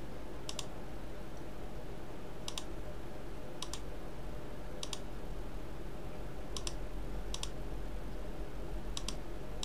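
Computer mouse clicks at a desk: about seven short, sharp click pairs spaced one to two seconds apart, over a steady low hum.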